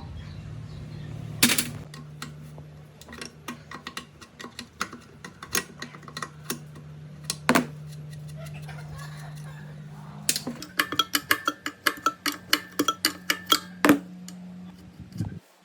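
Sharp metallic clicks and knocks of hand tools on metal parts, over a low steady hum. About two-thirds of the way in comes a quick even run of clicks, roughly six a second, lasting a few seconds.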